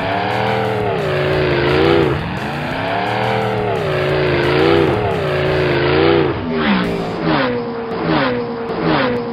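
Race-car engine sound effect revving up and down in slow swells about every two seconds, then switching to a quick pulsing rev, about two pulses a second, from about six seconds in.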